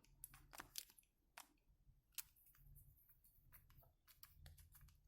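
Faint, scattered small clicks and taps from small plastic and metal parts of a power plug being handled while a wire is seated in its terminal.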